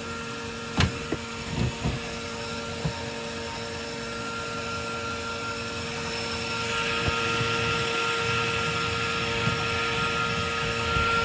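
Commercial gas water heater running with a steady mechanical hum, a hiss building up about halfway through. A few sharp knocks of handling in the first three seconds.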